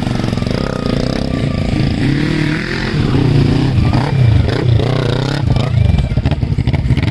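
Motorcycle engines running and being revved, the pitch rising and falling several times as the bikes pull away on a dirt track.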